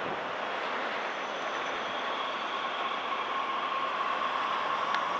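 A passing vehicle: a steady rushing noise, with a steady high whine coming in about a second in.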